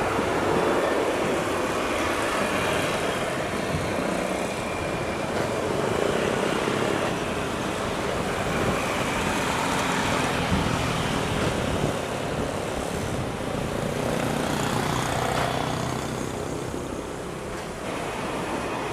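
Jet engine noise from a landing Boeing 787-8 Dreamliner: a steady rumble that eases off a little near the end.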